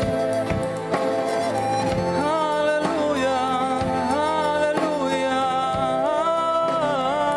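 Slow live music: acoustic guitar strumming with accordion and keyboard holding chords, and from about two seconds in a clarinet playing a melody with a wavering vibrato.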